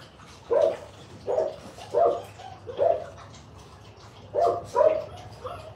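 A dog barking: six short barks, four in an uneven run, then a pause of over a second, then two more in quick succession.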